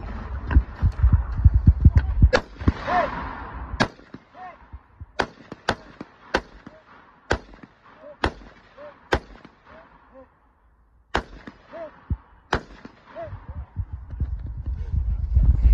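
A long gun firing about a dozen single shots in a competition stage, spaced roughly half a second to a second and a half apart, many of them followed by a short ring.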